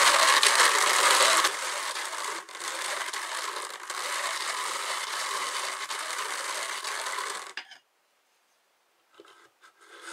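Hand-cranked drum carder turning steadily as wool is fed in, with the noise of its gears and wire-toothed drums. It gets quieter about a second and a half in and stops suddenly after about seven and a half seconds, followed by a few faint clicks.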